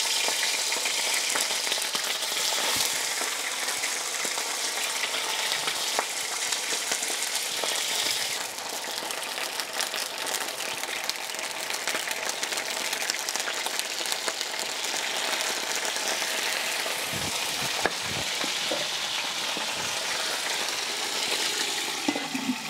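Chicken pieces frying in a clay cazuela: a steady sizzling hiss dotted with many small pops and crackles as the meat browns.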